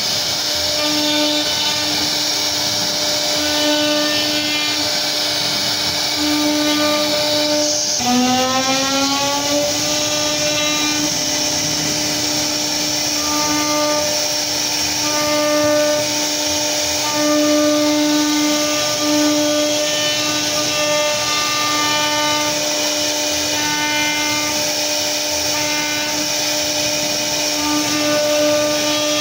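CNC router spindle whining steadily at a high pitch as its bit cuts a relief carving into wood, with a hiss of cutting noise. About eight seconds in the whine glides up in pitch as the spindle speeds up, then holds steady again.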